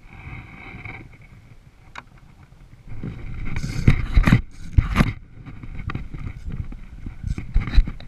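Irregular knocks and scrapes of a paddle and fishing rod being handled against a plastic kayak, a cluster of loud strikes in the middle and more near the end.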